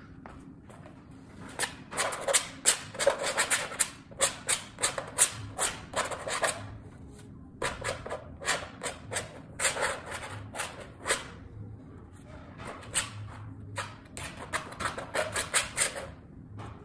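Oil paint being worked onto a stretched canvas in quick, repeated scratchy strokes, coming in three runs of strokes with short pauses between.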